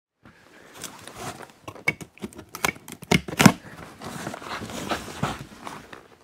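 Hands handling a cardboard box: cardboard rustling and scraping with irregular taps and knocks, the loudest a couple of sharp knocks about three seconds in.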